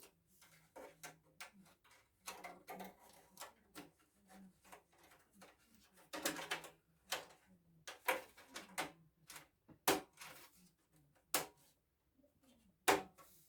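A stamped sheet-metal motherboard I/O shield being handled and pressed into a PC case's rear opening. Irregular light clicks and taps, with a few sharper clicks in the second half as it snaps into place.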